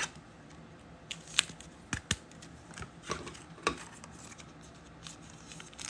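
Trading cards and pack wrappers being handled: a scattered run of small sharp clicks and snaps, about eight of them in the first four seconds.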